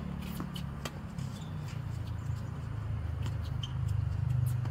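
Tennis rally on an outdoor hard court: scattered sharp knocks of the ball off rackets and the court, with a brief shoe squeak about three and a half seconds in, over a steady low rumble.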